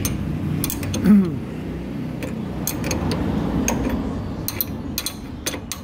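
Scattered metallic clicks and ticks of a ring spanner working the nut of a screw-type bushing puller, pressing a new bushing into the lower suspension arm. A brief low sound falling in pitch about a second in, over a steady background hum.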